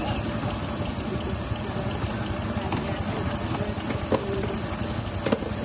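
A steady engine running noise with a fast low flutter and a faint hiss, broken by two short sharp knocks about four and five seconds in.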